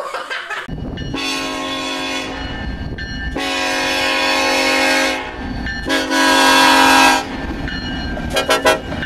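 BNSF SD70ACe diesel locomotive's Nathan K5LLA five-chime horn sounding three long blasts, then a quick run of about four short toots near the end, over the low rumble of the locomotive and train.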